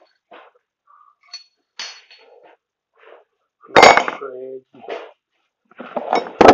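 Scrap metal pieces being handled and knocked together. About four seconds in, one loud metal clang rings briefly, as a piece is tossed down. Near the end comes a quick run of clattering knocks.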